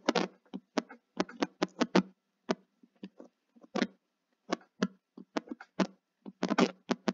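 Stylus tip tapping and clicking on a tablet screen during handwriting: a string of short, irregular clicks, some in quick clusters.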